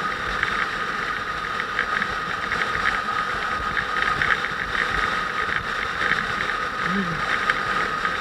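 Motorcycle running at a steady pace on the road, with a constant high whine over an even rush of road and wind noise.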